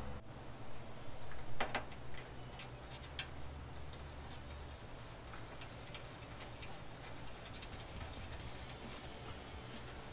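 Small clicks and light scraping of fingers tightening a fuse holder's nut on the back of a thin sheet-metal panel, with a few sharper clicks in the first three seconds and fainter ticks after.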